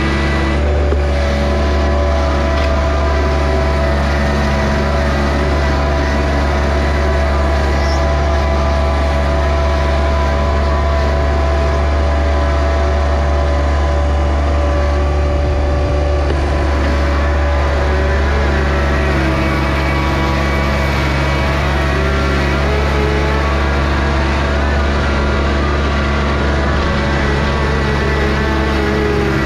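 John Deere 1025R compact tractor's three-cylinder diesel engine running steadily, its pitch wavering slightly in the second half.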